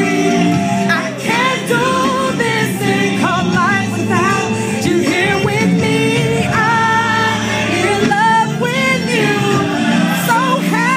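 Gospel worship music: a sung melody over steady instrumental backing.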